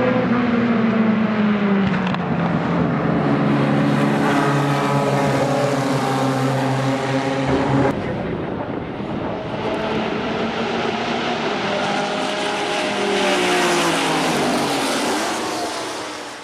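A 1959 Maserati Tipo 61 Birdcage's 2.9-litre straight-four racing engine running hard as the car passes, its pitch falling as it goes by. About eight seconds in the sound changes to several historic racing cars' engines passing together, their pitch rising and then falling again.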